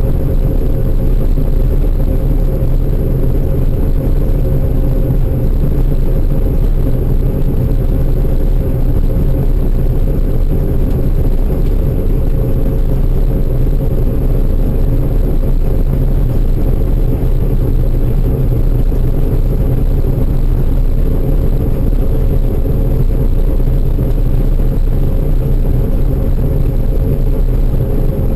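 Heavy farm machinery engine running steadily under load, a loud, even low drone with a constant hum.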